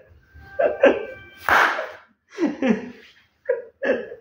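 A man laughing in short bursts, stifled behind his hand, with a brief steady tone about a second in.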